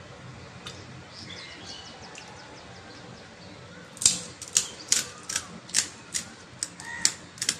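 Crisp fuchka (pani puri) shells crunching, about a dozen sharp irregular cracks starting about four seconds in, close to the microphone.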